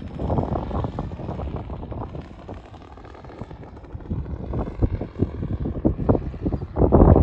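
Gusty wind buffeting the microphone, easing off for a second or two in the middle and building again to a strong gust near the end.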